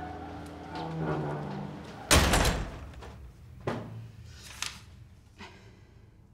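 A door shutting with a loud slam about two seconds in, followed by three lighter knocks about a second apart. A music score fades out underneath at the start.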